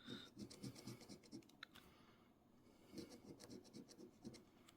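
Faint scratching of a coin on a scratch-off lottery ticket, rubbing off the coating in two bouts of quick short strokes.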